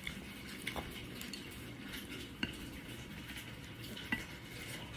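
Quiet eating at a table: a few light clicks and taps of hands and utensils against plates, spaced a second or more apart, over a low steady background.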